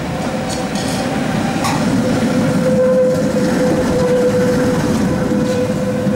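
Tatra T3 tram passing close by, its wheels and running gear rumbling on the rails, louder as it draws level. A steady whine runs through the rumble, and there are sharp clicks from the wheels twice.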